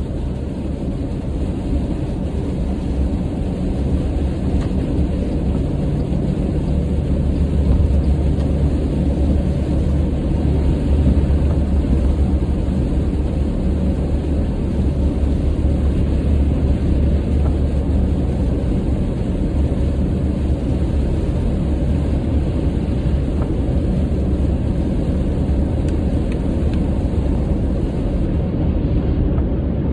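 Steady low road and engine noise of a car heard inside the cabin, cruising at about 70 mph on a wet highway in rain.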